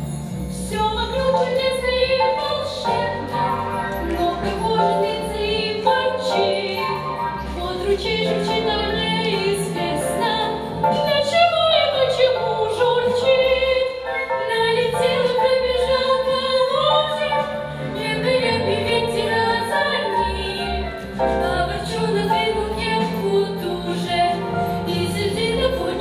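Young girls singing a song into microphones over instrumental accompaniment with a steady bass and beat, the voices passed from one singer to another.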